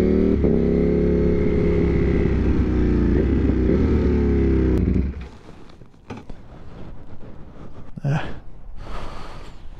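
A 90-degree V4 motorcycle engine running at a steady speed, which stops abruptly about five seconds in. Fainter noise follows, with two short bursts near the end.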